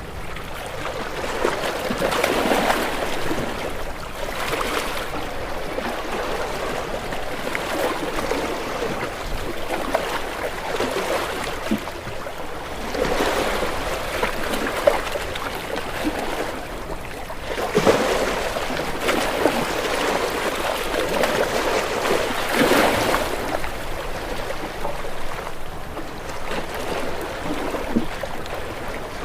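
Ocean waves breaking and washing against rocks: a continuous rush of water that swells into louder splashing surges every few seconds, then falls back.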